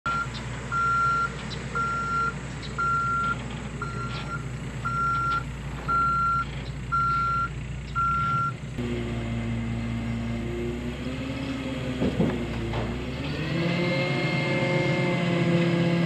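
Dump truck's back-up alarm beeping about once a second, eight beeps, while the truck reverses over the engine's steady running; the beeping stops and, about three-quarters of the way in, the engine speeds up, rising in pitch as the hydraulic dump bed tips up.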